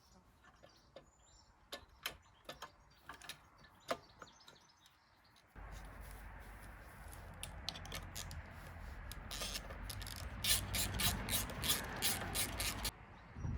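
Tools and metal parts clicking as a cleaned carburetor is refitted to a lawnmower engine. About halfway in a steady low hum starts abruptly, and near the end there is a run of fast, regular clicks before it all cuts off.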